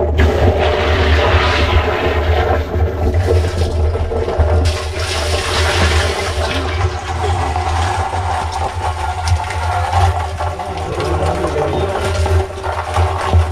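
A stream of water pouring and splashing into a plastic barrel full of live land crabs, washing them, with a steady low hum underneath.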